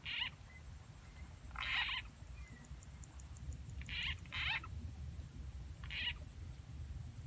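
Frog croaks: short calls every second or two, two in quick succession about four seconds in.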